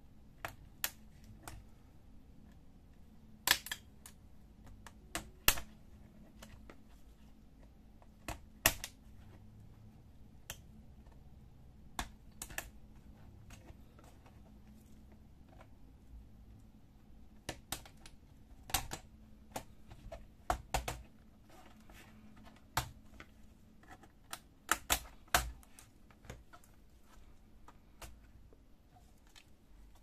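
Irregular sharp plastic clicks and snaps from a Dell Inspiron 15 3573 laptop keyboard being pried out: a pry tool pushes in its retaining latches and the keyboard pops free of the palmrest. The clicks come singly and in quick clusters, with quieter stretches between.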